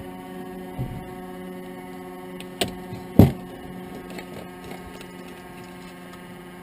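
Steady low hum inside a parked Cessna 172 cockpit with the engine stopped, and two knocks about two and a half and three seconds in as a headset is set down on the glareshield.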